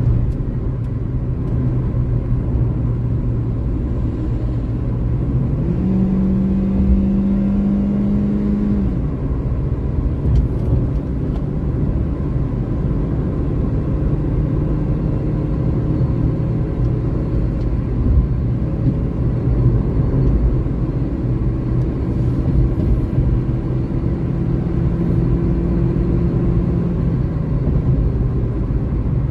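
Car at highway speed heard from inside the cabin: steady road and tyre rumble under the engine's drone. The engine note jumps higher about six seconds in, holds for about three seconds and drops back, then climbs slowly near the end as the car speeds up again.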